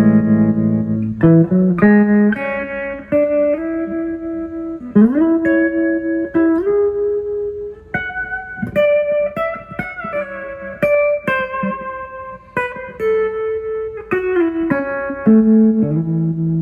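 Electric guitar played through a 1973 Fender Twin Reverb amp and its new internal speakers, tested at full power. Chords at the start and again near the end, with single-note melodic lines and upward slides between.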